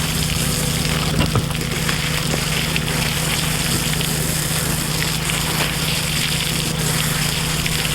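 Garden hose spraying water onto the wooden bed of a hay wagon, fed by an irrigation pump whose low steady hum runs underneath; the water pressure is low.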